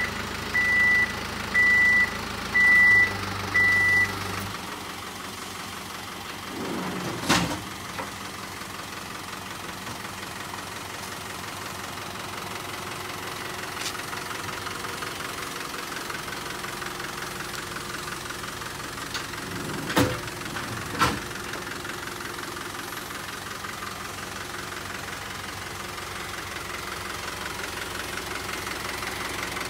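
Hino Dutro's 4.0-litre N04C turbo-diesel idling with a steady diesel clatter. In the first four seconds, five short high beeps sound as the crane hook is stowed, and a lower hum stops soon after. A few sharp knocks follow, one about seven seconds in and two close together around twenty seconds.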